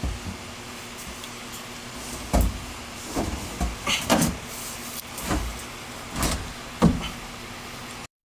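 A large wooden subwoofer baffle and frame being worked into a car's rear cargo area: a series of irregular wooden thumps and knocks as the panel bumps against the car body and interior, about seven over several seconds. The sound cuts off suddenly near the end.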